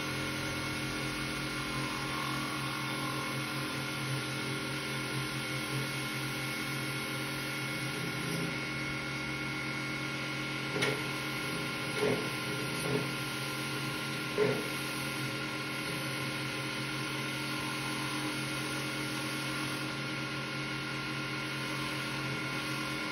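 Mini wood lathe running with a steady hum while a hand-held turning tool cuts a pen blank, with four short, louder cuts a little past the middle.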